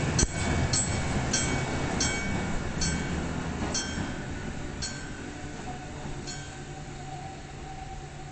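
Randen tram at a level crossing: ringing metallic clanks that come further and further apart and fade, over a rail rumble dying away. A steady tone joins past the middle.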